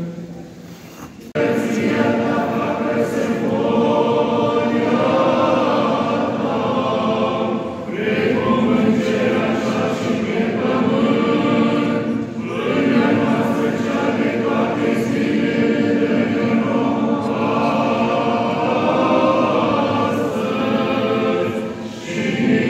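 Orthodox church choir singing a liturgical hymn a cappella: several voices in long, held phrases. It comes in suddenly about a second in, with short breaths between phrases.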